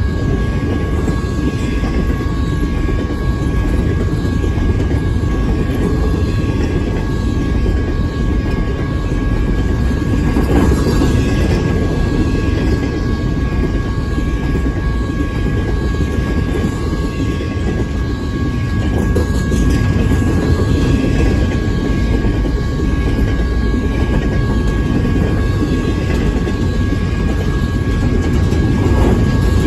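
Double-stack intermodal container cars of a BNSF freight train rolling past close by: a steady, loud rumble of wheels on rail. Under it runs a constant two-pitch ringing tone from the grade-crossing signal.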